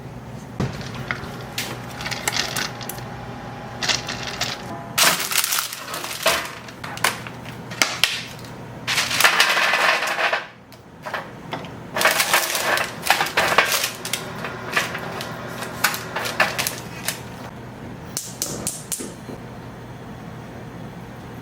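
Kitchen prep sounds: a string of small clicks, clatters and rustles from handling utensils and ingredients, with a longer rush of noise about nine seconds in, over a low steady hum.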